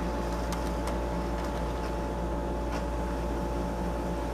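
HO scale model commuter train running slowly along the track: a steady electric motor hum with a couple of held tones, and a few light irregular clicks from the wheels on the rails.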